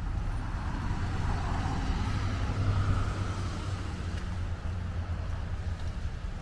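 A car passing by, its tyre noise swelling and fading, loudest about two to three seconds in, over a steady low rumble.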